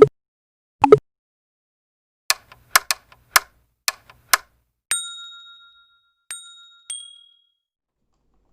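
Added sound effects: two loud hits at the start, a quick run of about seven sharp clicks, then three bell-like dings, the first ringing out longest and the last the shortest.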